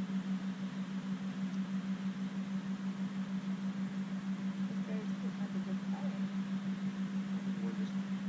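Boat motor running steadily at trolling speed: a low, even drone with a regular pulse.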